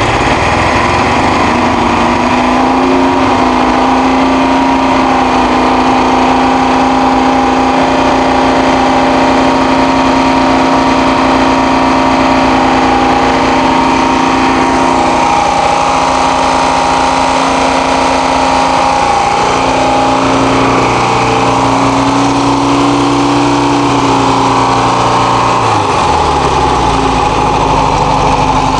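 VW T2 bus's 1600 air-cooled flat-four engine running just after being started, having stood for seven years. It runs steadily, its speed wavering a little past the middle of the clip and dipping briefly near the end.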